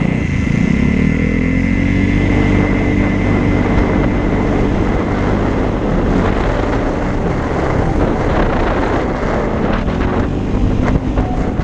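Vespa scooter engine accelerating, its pitch rising over the first two seconds and then holding steady at cruising speed, with wind noise on the microphone.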